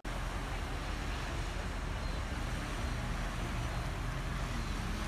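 Steady outdoor ambience on a sandy seaside beach: an even wash of noise with a strong low rumble.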